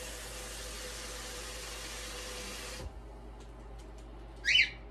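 A single short, sharp cockatiel call near the end, the loudest sound here. It follows a steady hiss that stops abruptly about three seconds in.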